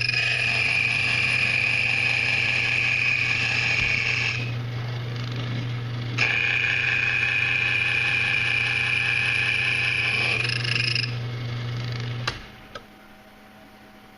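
Ilco 017 automatic key duplicator running a cutting cycle: the motor hums steadily while the cutting wheel whines high against the key twice, for about four seconds each time. The machine engages the cutting wheel but not the tooth, so the cut is incomplete. Near the end the motor switches off with a click and stops.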